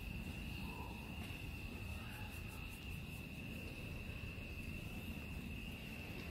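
Crickets trilling, one steady high unbroken tone, over a low background rumble.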